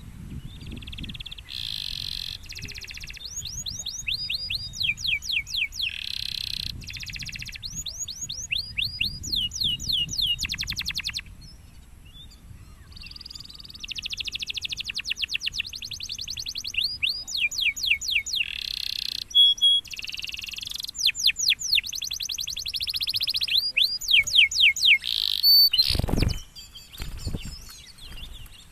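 Domestic canary singing in long rapid trills and runs of quick down-slurred whistled notes, with a pause of about two seconds midway. A brief thump near the end.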